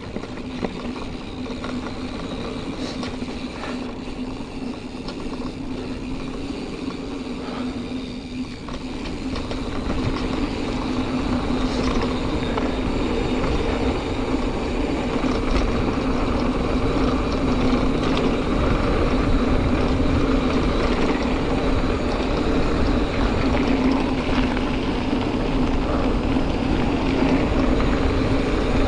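Giant Fathom 2 hardtail mountain bike ridden along a dirt trail: tyre and trail noise with drivetrain rattle and wind on the helmet camera, over a steady hum that grows louder about ten seconds in as the bike picks up speed.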